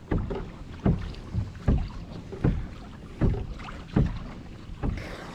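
Kayak paddle blades dipping into calm water in a steady rhythm, one short splash about every three-quarters of a second.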